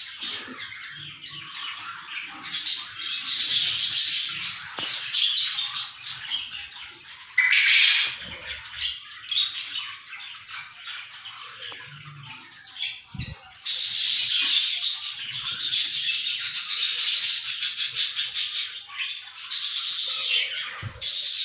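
Many caged small birds chirping and squawking together in a dense, continuous chatter, busiest in the second half.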